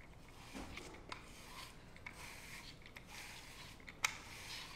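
Soft rustling and rubbing noises with scattered small clicks, and one sharp click about four seconds in.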